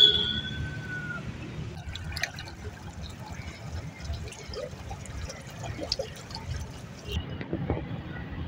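Steady rushing of a flooded river in spate, the fast muddy current heard as a low, even wash. At the very start a loud high whistle-like tone sounds and fades within about a second.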